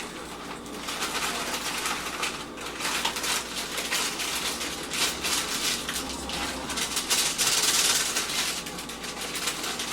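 Dry cake mix being poured and shaken out of its bag into a mixing bowl: a rustling, crinkling hiss that rises and falls, fullest near the end.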